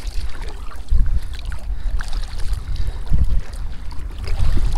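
Wind buffeting the microphone in uneven gusts as a kayak is paddled, with faint paddle splashes and knocks.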